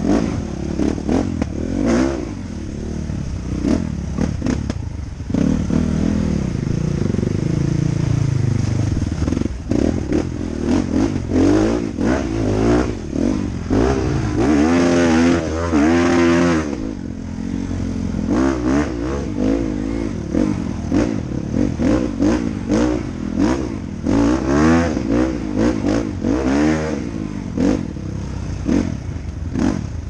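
Off-road dirt bike engine revving up and down in repeated throttle bursts as it climbs a rough trail, its pitch rising and falling every second or two, with knocks and clatter from the bike over the rocky ground. The revs climb highest and hold for a moment about halfway through.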